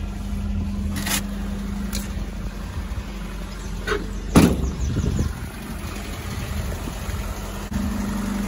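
The 1993 Geo Tracker's 1.6-litre four-cylinder engine idling with a steady low hum. There are a couple of sharp clicks about one and two seconds in, and a louder knock a little past the middle.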